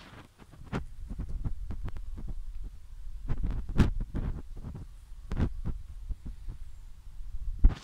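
Irregular low thuds over a low rumble: footsteps on garden soil and handling noise on the microphone of a handheld camera being carried while walking.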